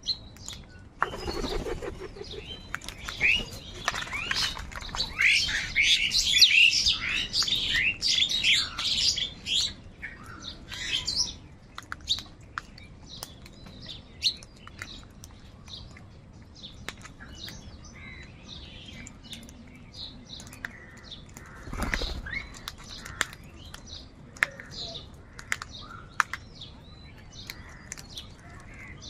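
A large flock of crows calling. The calls are densest between about three and ten seconds in, then thin to scattered calls among short, sharp clicks.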